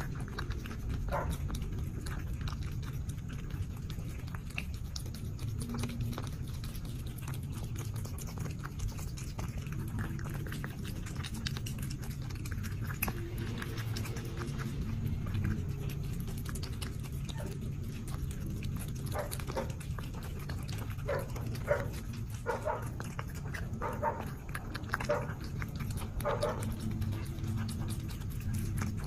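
Cat eating wet food from a bowl, with a steady low rumbling from the cat throughout. In the second half come rapid repeated chewing and lip-smacking sounds.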